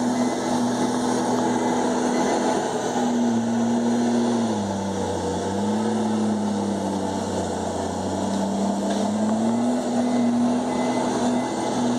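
Komatsu D51EX bulldozer's diesel engine running hard, its pitch dropping about four seconds in and holding lower for several seconds before rising again near ten seconds in.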